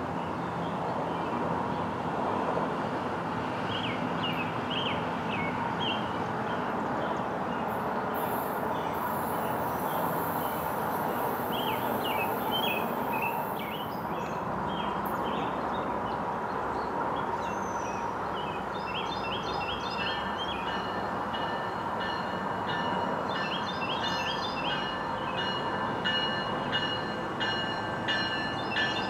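NJ Transit River Line Stadler GTW diesel light-rail railcars running with a steady engine drone, with birds chirping. About twenty seconds in, a high ringing tone with rapid repeated pings joins in as the next railcar approaches.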